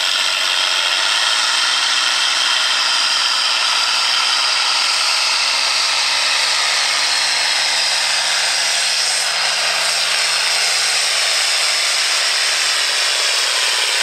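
International Harvester turbocharged diesel tractor engine running hard under full load while pulling a weight-transfer sled, with a steady high-pitched whine over the engine note. Near the end the engine note drops away as the pull winds down.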